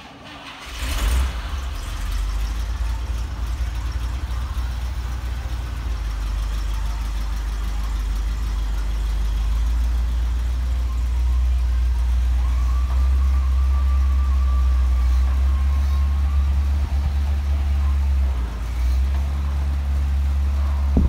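1981 International Cargostar truck's engine idling steadily, a low rumble that comes in about a second in.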